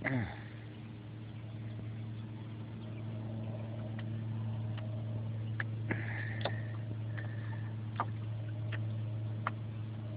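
A steady low motor hum with a few light clicks now and then from about four seconds in, and a short falling whistle at the very start.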